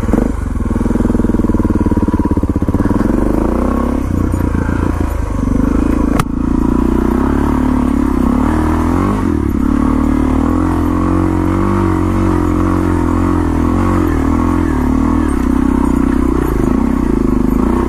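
2015 Suzuki DR650SE's single-cylinder four-stroke engine running under way on a dirt trail, its note rising and falling with the throttle. A single sharp knock about six seconds in.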